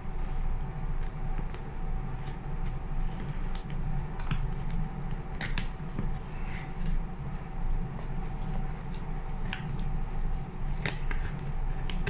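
Scissors cutting through the plastic packing tape on a cardboard shipping box: an irregular string of sharp snips and crackles over a steady low hum.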